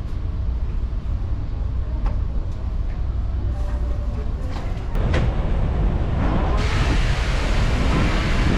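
Steady low rumble of a ferry under way. About five seconds in, and more strongly from six and a half seconds, it gives way to loud wind on the microphone and the rush of the sea.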